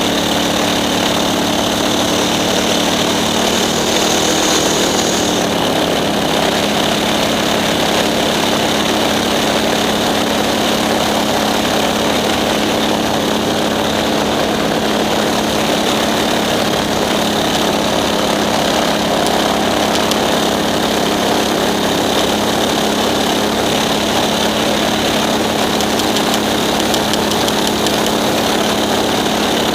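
An engine running steadily under a constant rushing noise; its hum steps down a little in pitch about five seconds in, along with a faint high whine that stops there.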